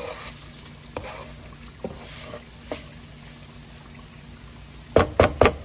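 Spatula turning cooked rice in a nonstick pan: soft scraping with a few light taps, then three sharp knocks in quick succession near the end.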